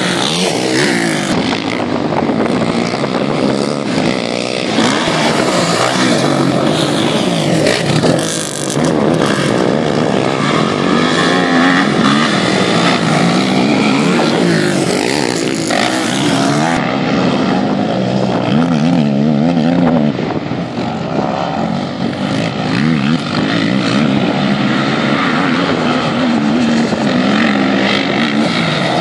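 Racing quad bikes' engines revving hard on a dirt motocross track, the pitch rising and falling continually as riders throttle on and off through jumps and corners, with more than one quad running at once.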